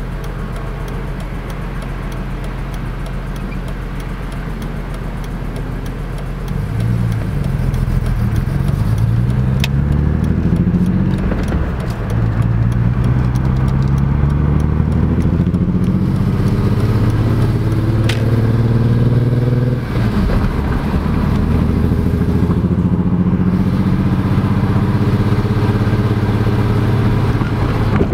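BMW E46 M3's S54 straight-six engine idling, then revved up about six seconds in and held at raised revs, with a brief dip about twenty seconds in before it is held up again.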